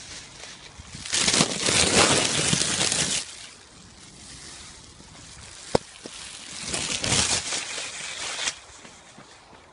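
Two loud bursts of rustling, each about two seconds long, with a single sharp click between them.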